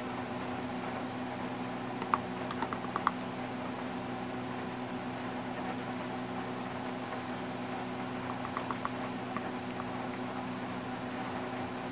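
A steady electrical hum with hiss underneath, and a few faint ticks about two to three seconds in and again near nine seconds.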